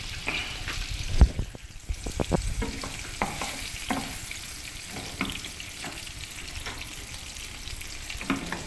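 Sliced onions sizzling in a nonstick frying pan as a wooden spatula stirs and scrapes them, with scattered clicks and one sharp knock about a second in.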